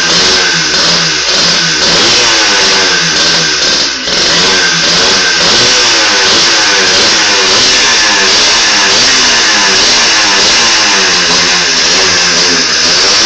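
Yamaha DT two-stroke motorcycle engine running on a moped's CDI ignition unit, loud and unsteady, its pitch rising and falling over and over as the revs swing. The level dips briefly about four seconds in.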